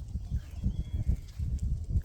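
Hooves of a flock of sheep on the move, thudding irregularly several times a second.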